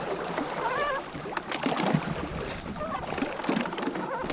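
Lakeside night ambience: a steady hiss of wind and water, with a couple of faint distant wavering calls about a second in and again near three seconds in.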